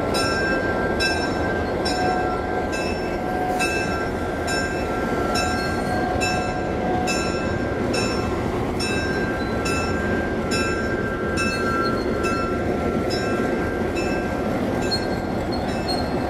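Vintage EMD diesel locomotives idling, a steady engine drone with a high whine over it, while a locomotive bell rings steadily at about two strikes a second.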